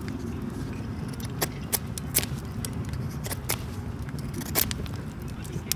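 Sharp, irregular clicks and scrapes from kindling being handled and worked by a small wood stove with a fire burning in it, over a low steady rumble.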